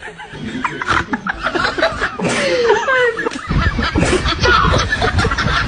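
Laughter and giggling, dense and lively, with short pitched sounds that rise and fall.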